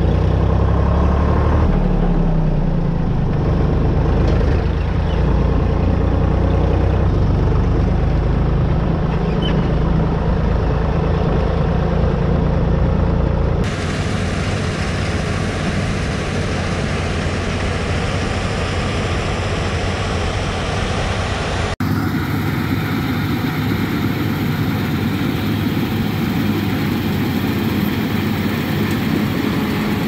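Farm harvest machinery engine running steadily with a deep hum. The sound changes abruptly twice, about 14 and 22 seconds in.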